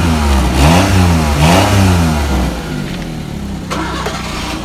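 Maruti Alto's small three-cylinder petrol engine blipped through about three quick revs, then settling back to a steady idle about halfway through. The exhaust is through the stock silencer, which the mechanic says gives a slight sound variation.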